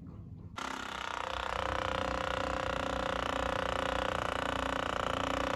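Percussion massage guns running, a steady motor hum with a rapid pulsing that starts suddenly about half a second in.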